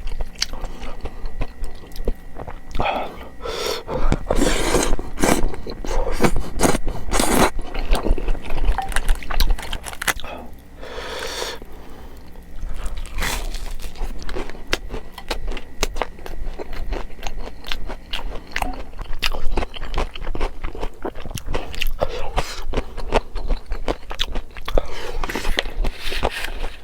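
Close-miked eating: a steady run of crisp crunching bites and chewing, with a brief lull partway through.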